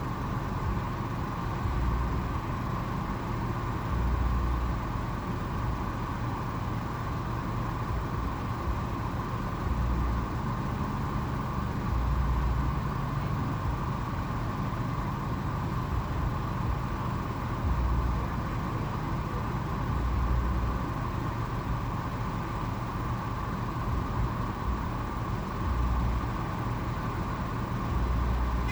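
Car engine idling, heard from inside the cabin: a steady low hum with soft low rumbles swelling every few seconds.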